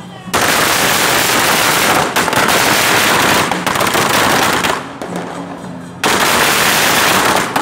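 Barrages of plow firecrackers (犁炮), lit from a charcoal brazier and thrown onto the street, going off in dense rapid volleys of bangs. One long volley runs for almost five seconds, then after a short lull a second volley starts about six seconds in.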